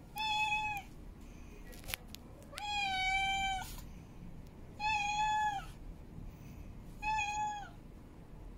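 Female cat in heat calling: four drawn-out meows about two seconds apart, each held on one pitch and sliding down at the end, the second one longest.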